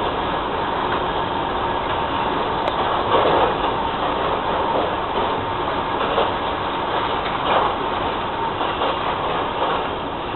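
Freight train of tank wagons rolling slowly through a marshalling yard: steady wheel-on-rail rumble and rattle, with a louder clatter every second or two as wheels pass.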